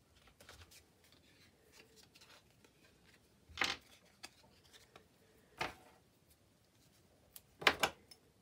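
Short rustles of card and paper being handled and set down on a desk: three brief ones about two seconds apart, the last a quick double and the loudest, with faint small taps between.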